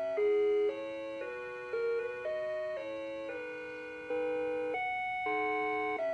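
Animated Mrs. Claus figurine's built-in music playing a simple, tinny, bell-like melody, one held note after another about every half second.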